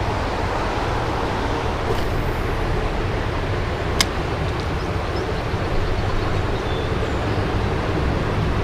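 Steady rush of a creek running high after rain, with a single sharp click about four seconds in.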